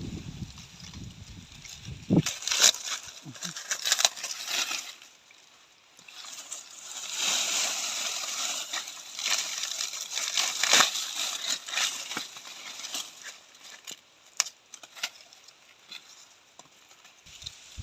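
Dry corn plants rustling and crackling, with sharp snaps among the rustle, in two stretches: a shorter one a couple of seconds in and a longer one from about the middle, then only scattered snaps.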